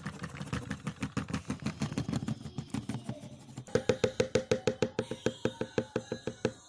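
Short intro music: a fast, even beat of knocking percussion, about six strokes a second, joined by a pitched note on each beat from about halfway, stopping just before the end.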